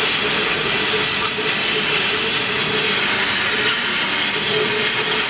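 CO2 laser cutting machine running as it cuts a 3 mm sponge sheet: a steady, even hiss, with a faint hum under it.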